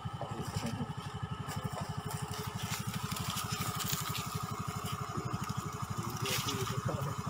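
A small engine idling steadily, with a rapid, even low throb and a faint steady whine above it.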